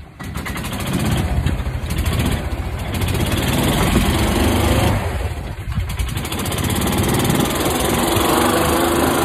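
Small engine of a utility buggy revving up and running under load as the buggy strains against a tow rope to pull a fallen tree. It builds over about the first second, dips briefly around the middle, then runs steadily.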